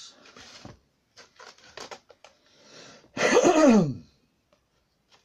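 A man clearing his throat once, loudly, about three seconds in, the sound falling in pitch. Before it come a few faint clicks and rustles from handling small card pieces.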